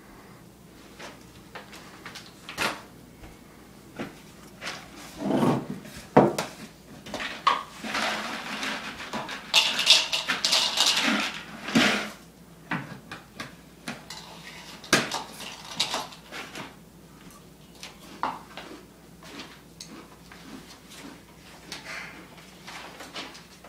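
Kitchen clatter: scattered clinks and knocks of a bowl, dishes and cutlery on a counter, with a denser stretch of pouring and rattling a few seconds before the middle.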